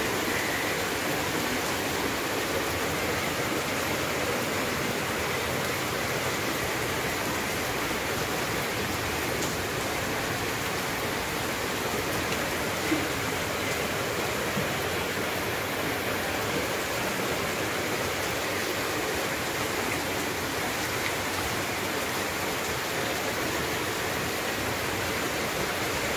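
Rain falling steadily on a paved lot and parked cars, a constant hiss of water, with one brief sharp tap about halfway through.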